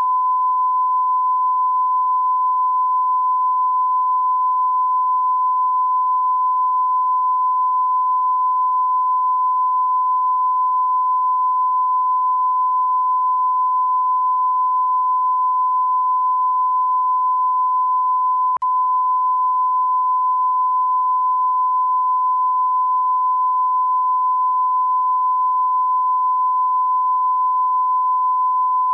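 Censor bleep: a single steady, high-pitched beep tone held without a pause, masking remarks judged inappropriate. It breaks for an instant with a click about two-thirds of the way through.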